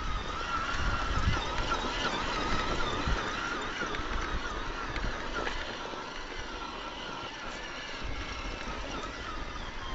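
Whine of a 1/10-scale RC rock crawler's electric motor and geared axles, wavering in pitch as the throttle rises and falls while it crawls over loose rock, with low rumbles and scattered knocks from the tyres on the stones.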